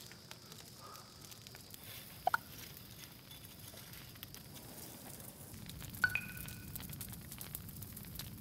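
Open fire crackling under a steel tunnel barbecue, with two sharp metallic clinks about two seconds and six seconds in as the fire is stoked with a metal bar.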